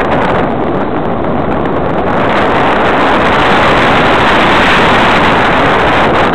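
Loud, steady rushing noise recorded by a camera under the wing of a radio-controlled motor glider in flight: the airstream buffeting the microphone.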